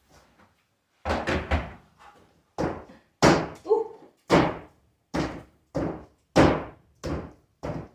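A dozen or so hard knocks at a mobile-home ceiling panel, about one or two a second and unevenly spaced, with a quick triple near the start, as the panel is forced into place overhead.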